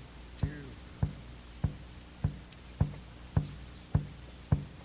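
Instrumental song intro: a steady drum beat, eight thumps about one and three-quarters a second, each carrying a short low pitched note.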